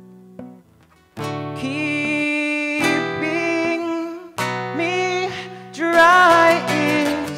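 Acoustic guitar strummed under a male voice singing. A chord rings out and fades, there is a short break about a second in, then the strumming starts again and sung notes with a wavering vibrato come in near the end.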